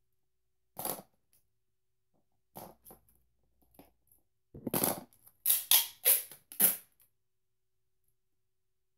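Clear sticky tape crinkling and being rubbed flat by hand over paper cutouts: a few scattered rustles, then a quick run of four louder rubbing strokes in the second half.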